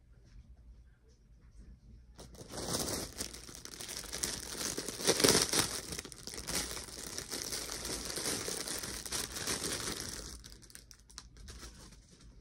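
Toy packaging crinkling and rustling as a doll is unboxed, starting about two seconds in, loudest about five seconds in, and dying away a couple of seconds before the end.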